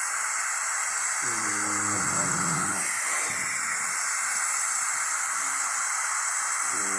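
Steady hiss from a police body camera's microphone, with a faint, muffled voice heard briefly about a second in and again near the end.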